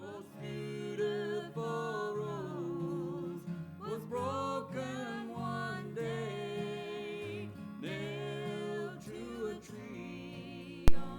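A sung song with guitar accompaniment: one voice holding notes with vibrato over steady low chords. A single sharp click near the end is the loudest sound.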